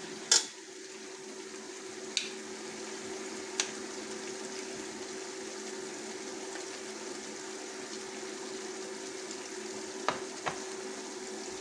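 Sliced onions frying in hot oil in an aluminium pot: a steady sizzle, with a steady low hum underneath and a few short metal clinks from the ladle, the loudest just under a second in.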